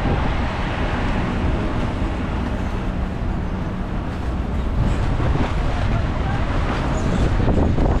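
Wind buffeting the microphone: a loud, steady low rumble that rises and falls.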